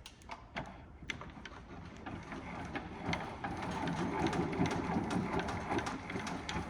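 Hand crank being turned to raise the top of a Husky tool chest. A couple of knocks as it starts, then a quick, steady run of small mechanical clicks that grows louder after about two seconds.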